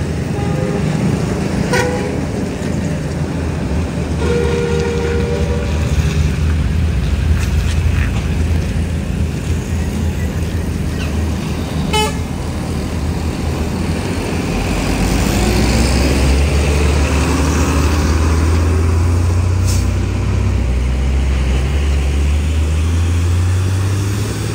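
Heavy diesel truck engines running, with a short horn toot about four seconds in. In the second half one engine's pitch rises steadily as a truck pulls away under load.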